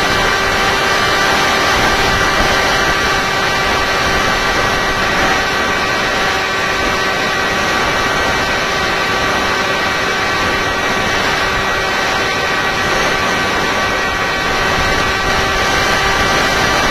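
Electric motor and pusher propeller of a Tek Sumo FPV flying wing, heard from the onboard camera: a steady whining hum holding one pitch, over the rush of wind from flight.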